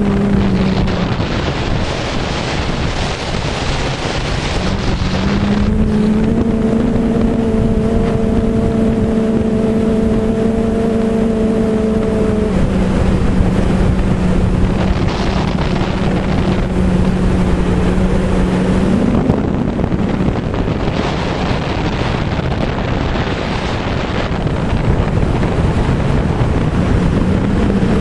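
Wind rushing over the microphone at speed on a downhill run, with a low droning hum under it that comes and goes. The hum steps lower in pitch about halfway through, rises briefly and drops out, then returns near the end.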